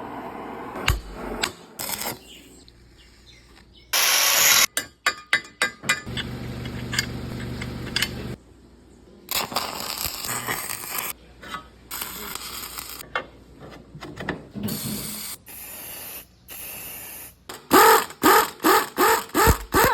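A series of short workshop tool sounds cut one after another: a loud hiss about four seconds in, a quick run of clicks, a steady motor hum lasting about two seconds, and a string of rhythmic strokes near the end.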